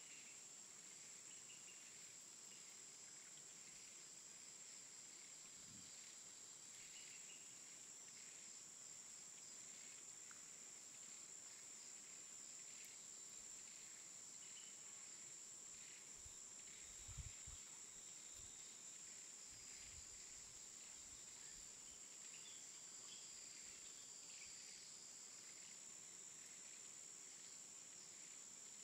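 Near silence: a faint, steady high-pitched hiss.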